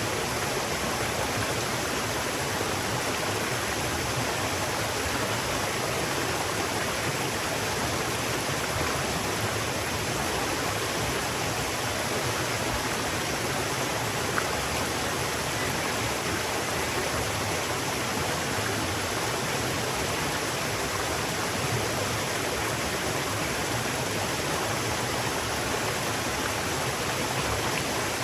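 River water rushing steadily, an even, unchanging flow with no breaks.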